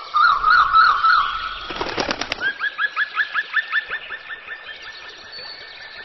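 A loud siren-like tone warbling up and down about three times a second, then a short cluster of clicks. After that comes a fast, very regular run of short rising chirps, about three to four a second, over a steady tone.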